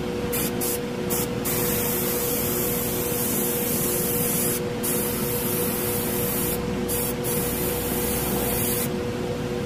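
Harder & Steenbeck Grafo T1 airbrush spraying thinned black lacquer through its 0.15 mm nozzle: a steady hiss of air that cuts out briefly about half a dozen times. A steady hum sits underneath.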